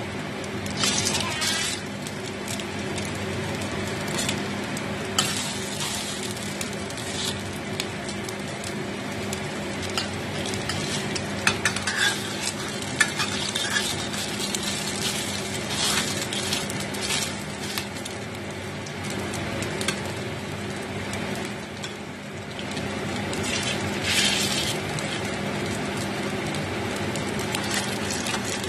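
Food sizzling steadily as it fries in a stainless steel pan. A spatula and a metal spoon scrape and clink against the pan several times as the pieces are moved and turned.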